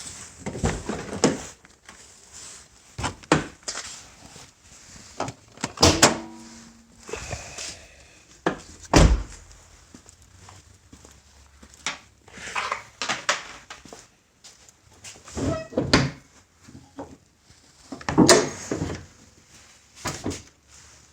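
Scattered knocks and clunks of hands and tools working in a car's engine bay, about ten separate hits a second or more apart, with handling noise between.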